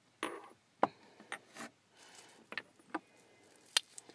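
Small containers and objects being handled on a wooden altar shelf: a short scrape, then about half a dozen sharp clicks and light knocks spread across the few seconds.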